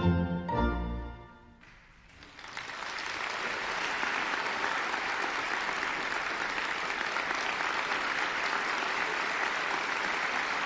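The orchestra's closing chords end about a second in, and after a brief hush the audience breaks into applause that builds and then holds steady.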